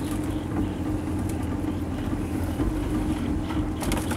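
A small boat's outboard motor running steadily at an even pitch, with a low rumble under it.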